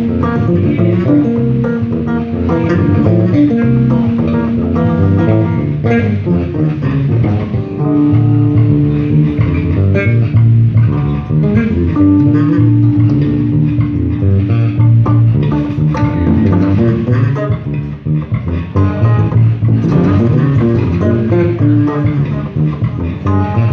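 Three electric bass guitars jamming together through amplifiers in a funk-jazz groove, a low bass line under longer held higher notes.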